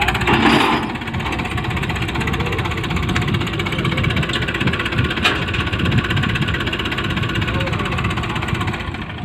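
Hindustan tractor's diesel engine running steadily with a rapid chugging beat, briefly louder about half a second in.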